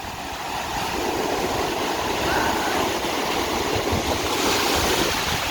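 Ocean surf washing in: a steady rush of water that swells over the first second and then holds.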